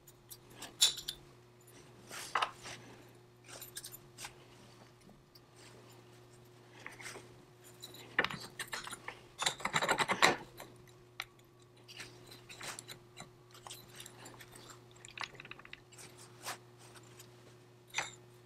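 Small metal parts clinking, tapping and scraping as they are handled on a workbench, in scattered strokes with a denser clatter near the middle, over a faint steady hum.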